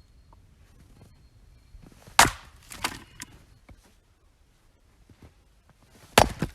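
Oak firewood being split: two heavy chopping strikes about four seconds apart, each followed by a few smaller cracks and clatters as the split wood gives and falls.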